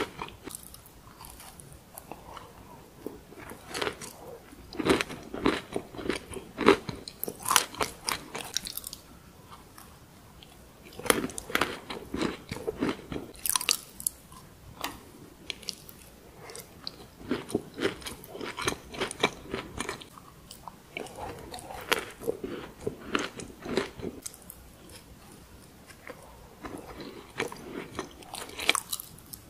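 Biting into and chewing a crunchy chocolate chip cookie: spells of crisp crunching a few seconds long, with quieter pauses of chewing between them.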